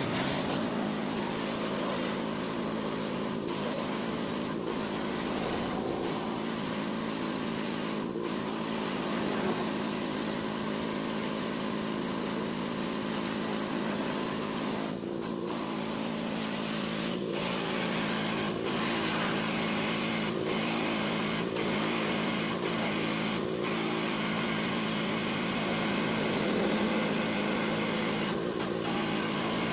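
Pressure washer running steadily while its water jet rinses shampoo foam off a pickup truck's steel cargo bed and rack.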